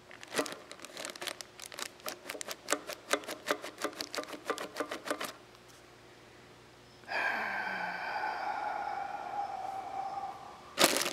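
Plastic packaging crinkling in quick crackles as a new front main seal in its bag is handled, for about five seconds. After a short pause, an unidentified steady pitched whine with overtones sounds for about four seconds, then the crinkling starts again near the end.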